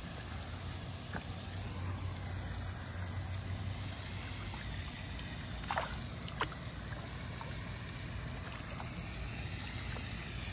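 Steady rushing spray of a pond fountain with a low hum underneath, and two sharp clicks about six seconds in.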